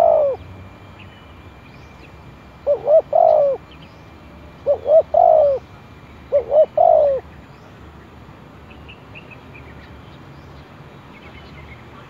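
Spotted dove cooing: a run of three-note phrases, two short coos and a longer one, about two seconds apart. The last phrase ends a little past halfway, and faint chirps of small birds follow.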